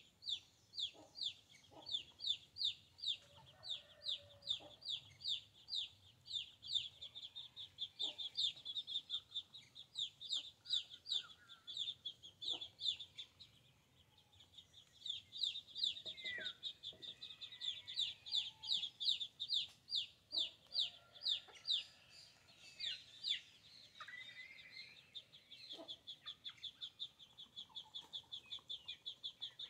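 A bird's high peeping note repeated steadily, about three times a second, breaking off briefly near the middle, over occasional low clucking from chickens.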